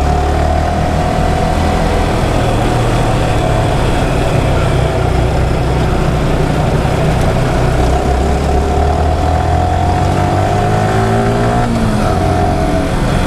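Yamaha R15 motorcycle's single-cylinder engine running steadily under way, mixed with wind rushing over the microphone. The engine note shifts a little near the end.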